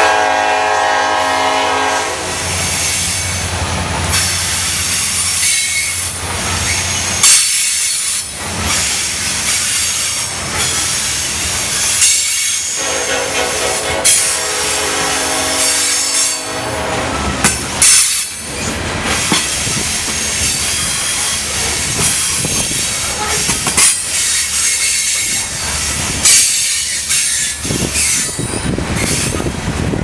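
A long freight train of coal hopper cars rolling by, with steady wheel rumble, clickety-clack over rail joints, and sharp metallic clanks and squeals now and then. A multi-note locomotive horn sounds in short pulses at the start and again for a few seconds about halfway through.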